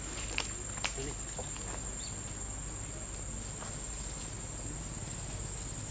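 Insects buzzing in one steady high-pitched drone, with two sharp clicks in the first second.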